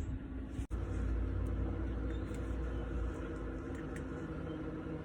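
Steady low mechanical hum with several even tones, with a brief dropout about a second in.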